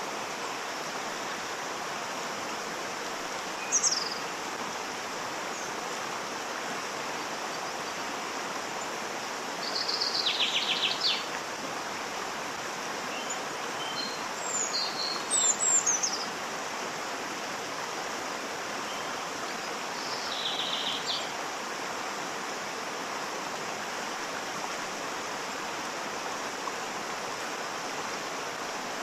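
Waterfall rushing steadily, with birds calling over it: a sharp downward-sliding whistle, a few quick falling chirps, and two short rattling trills.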